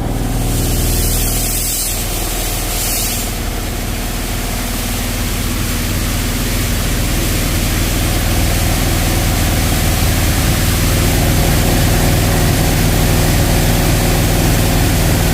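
High-pressure pump of a touchless car wash machine running steadily with a low hum, with the hiss of its water spray, which is strongest for the first three seconds or so.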